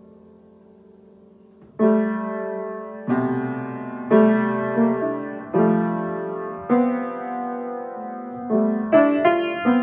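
Upright piano keys pressed by a cat's paws as it walks along the keyboard: uneven clusters of notes, each struck and left to ring and fade, about nine in all, starting about two seconds in.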